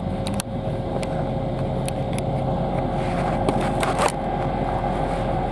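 Steady running hum of an electric commuter train heard from inside the carriage, with a constant high-pitched tone over it and a few faint clicks.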